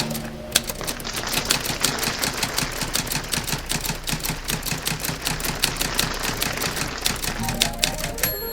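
Typewriter keys clattering in a fast, uneven stream of strikes.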